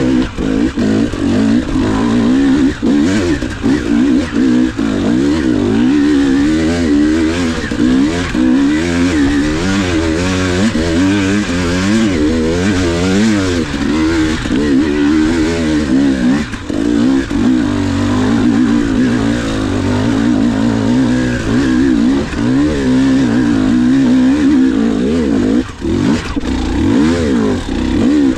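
KTM 300 XC two-stroke dirt bike engine being ridden hard on a trail, its pitch rising and falling constantly as the throttle is worked on and off.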